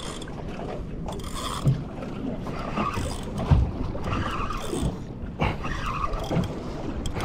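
Wind buffeting the microphone and choppy water slapping against a small fishing boat's hull, with irregular low thumps.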